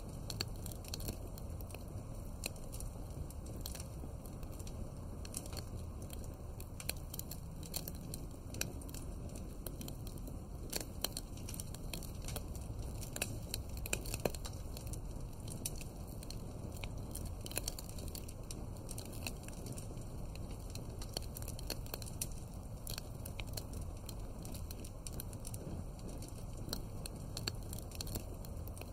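Wood fire crackling: irregular sharp pops and snaps over a steady low rumble of burning flames.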